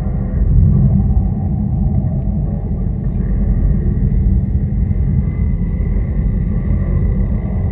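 Dark ambient drone noise music: a dense, steady low rumble with faint held tones above it.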